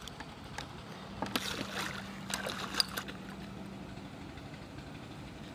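A hooked fish splashing at the pond surface as it is pulled in on a pole rod and landed on the bank: a run of splashes between about one and three seconds in, the sharpest near three seconds, over a faint steady low hum.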